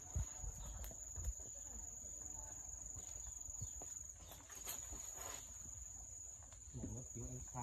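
An insect singing one steady, unbroken, high-pitched tone in the garden, faint under light handling noise.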